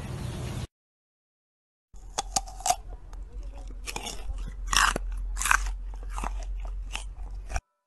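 Sika deer stag chewing close to the microphone: an irregular run of crunches and sharp clicks, starting after about a second of dead silence, loudest in the middle.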